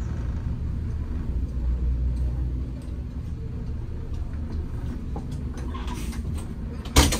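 Vehicle engine running with a steady low rumble, and a loud, sharp burst of noise near the end.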